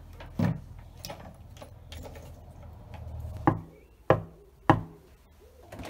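A few light thuds over a low hum, then a fist knocking three times on a frosted-glass front door, about half a second apart.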